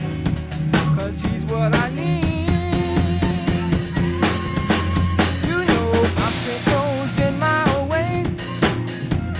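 A gospel band playing an instrumental passage: drum kit keeping a steady beat, bass guitar, and a wavering lead melody line above.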